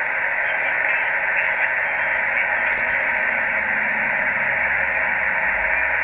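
Steady receiver hiss from an HF amateur radio transceiver's speaker, with the band noise heard through the radio's narrow audio passband and no station transmitting on the frequency.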